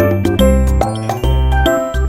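Background music: a bright, tinkling tune over a steady, regular bass.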